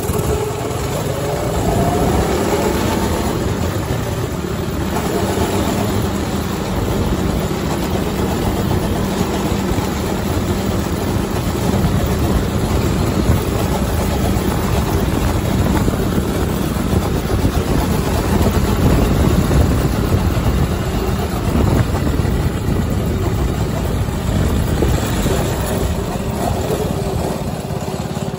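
Coleman RTK100 go-kart's small four-stroke engine running steadily as the kart drives along, its speed governor removed.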